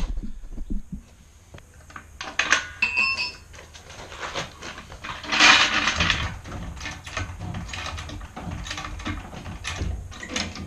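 Irregular metallic clinks, knocks and scrapes of steel tools and car parts being handled. There are a few short ringing metal strikes about two to three seconds in, and a louder scraping clatter around the middle.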